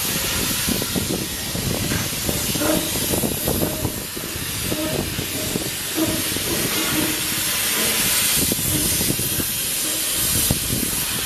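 Spray gun hissing steadily as it sprays EonCoat corrosion-resistant coating onto the welded joints of a steel frame, with an uneven low rumble underneath.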